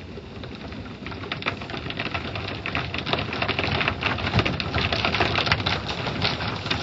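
Automatic car wash heard from inside the car: water spray and spinning cloth brushes beating against the windshield and body in a dense run of patters and slaps. It grows louder from about a second in.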